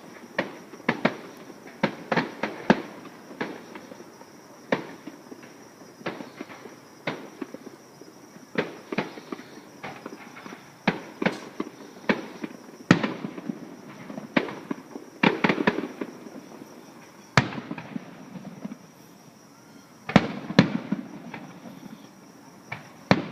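Aerial fireworks bursting: dozens of sharp bangs and pops at irregular intervals, some in quick clusters, with low rumbling echoes between them.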